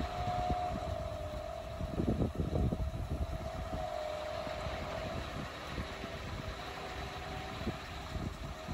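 Scania R 500 truck's V8 diesel engine idling, heard from alongside its trailer: a steady hum over a low rumble, with a few louder rumbling bumps about two seconds in.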